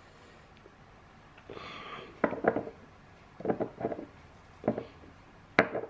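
A short breath through the nose, then four quick clusters of light clicks and taps, each cluster of two or three clicks, the last near the end the sharpest.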